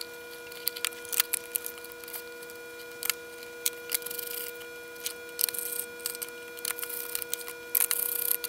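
Irregular clicks and short scraping sounds of a pick prying adhesive rubber feet off the plastic underside of a battery charger. A steady background hum runs underneath.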